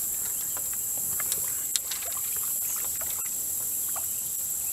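Steady high-pitched insect drone, with a few faint clicks and a small knock a little under two seconds in.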